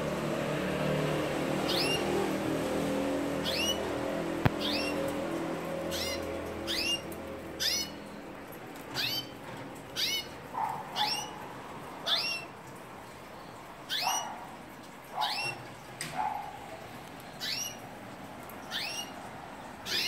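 Caged Spanish timbrado canaries giving short rising call notes, about one every second, some with a lower note beneath. A low steady rumble underlies the first part and fades out about eight seconds in.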